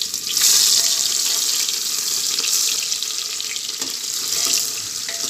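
Onions tipped into hot oil in a pressure cooker, sizzling loudly from about half a second in and carrying on steadily as a steel spoon stirs them, with a few light scrapes of the spoon on the pot.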